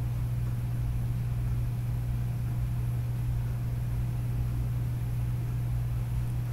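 A steady low mechanical hum with a faint hiss over it, unchanging in pitch and level.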